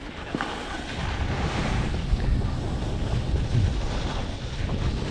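Wind buffeting the microphone of a camera moving fast downhill, over the hiss and scrape of skis or a board sliding on packed snow; the rumble grows louder as speed builds.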